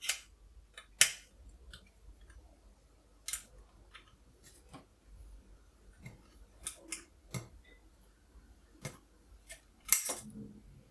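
Scattered small metallic clicks and clinks of hex keys working the frame-pin retaining screws out of a Planet Eclipse EMF200 paintball marker, with the tools and parts tapping against the metal body. The louder clicks come about a second in and again near the end.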